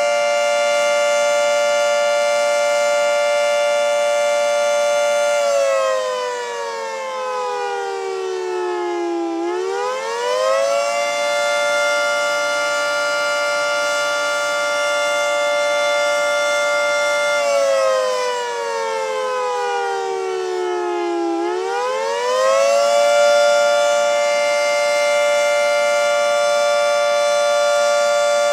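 Federal Signal 3T22A dual-tone electromechanical warning siren sounding the attack signal on test. It holds a steady two-note chord, falls in pitch for about four seconds and winds back up to hold again, and this happens twice.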